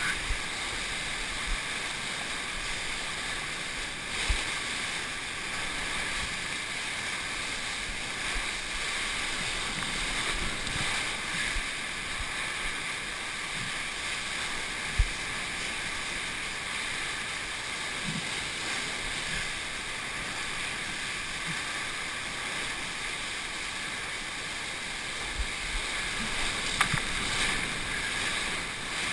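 Steady rush of churning whitewater on a river standing wave around a surfboard, with a few short thumps, the sharpest about halfway through.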